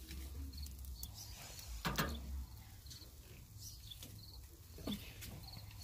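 Faint outdoor background with a bird chirping short high notes every second or so, and one sharp knock about two seconds in.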